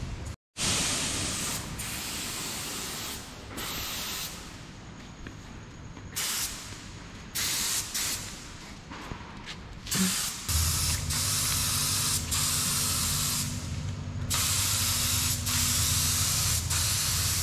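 Paint spray gun hissing in stretches of several seconds, with short breaks between them as paint is sprayed onto a boat hull. About ten seconds in, a motor starts humming steadily underneath.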